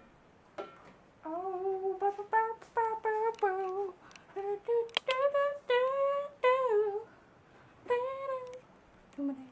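A boy humming a tune to himself: a string of short held notes that rise and fall in pitch, then one more note near the end.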